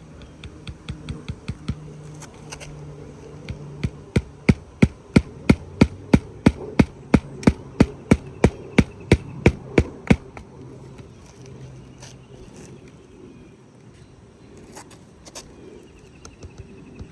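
Hammer blows on a shingle roof: a few light taps, then about twenty hard, evenly spaced strikes at roughly three a second, stopping suddenly about ten seconds in.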